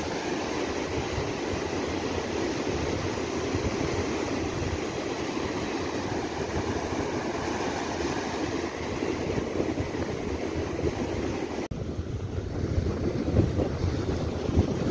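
Waves breaking on a sandy beach, with wind rumbling on a phone's microphone. The sound changes abruptly a little after two-thirds through, and the wind gusts grow louder near the end.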